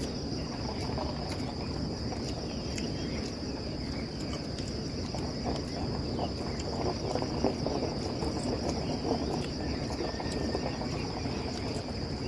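Steady, high-pitched chirring of insects that never lets up. Close by, there are soft eating sounds and small ticks of hands and food on a metal tray.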